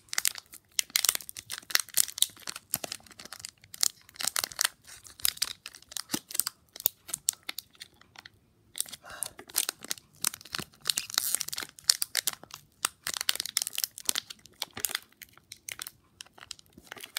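Foil wrapper of a Pokémon trading card booster pack being torn open and crinkled by hand: irregular bursts of crackling and rustling, with a short pause just past the middle.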